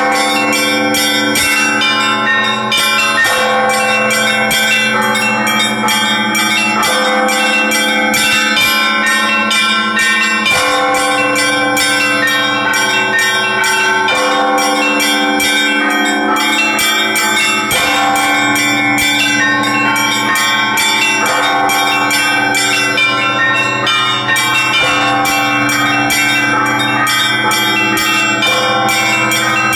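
Russian Orthodox church bells rung by one bell-ringer in a continuous peal: rapid strikes on the small bells over the long, sustained ringing of the larger bells, with fresh strikes on the big bells every few seconds.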